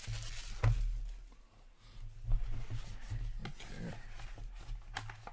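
Hands handling a small cardboard trading-card box, lifting and sliding its lid off, with rubbing and a few light knocks; the sharpest tap comes a little over two seconds in.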